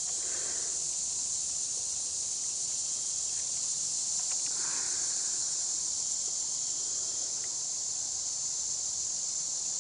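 Steady, continuous high-pitched chorus of insects such as crickets, with no break or change in rhythm.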